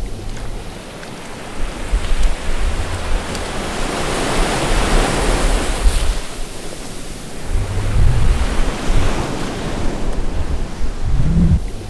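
Rushing, surf-like noise that swells and fades, with deep low rumbles every few seconds.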